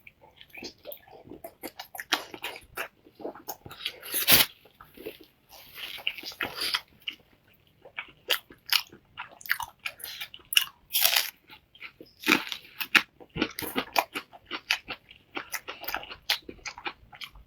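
A person eating close to the microphone: irregular bites, chewing and mouth smacks, each a short sharp click.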